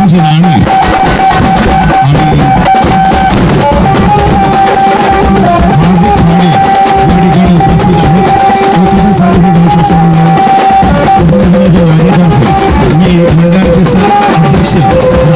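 Dhol and tasha drums playing a loud, dense, continuous beat, with a held melody line running over the drumming.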